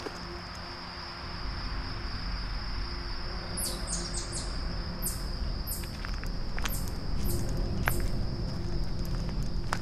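Insects trilling steadily on one high note, with a run of about eight short, very high chirps between about four and eight seconds in. Scattered sharp crunches of footsteps on dry leaf litter and a low rumble sit underneath.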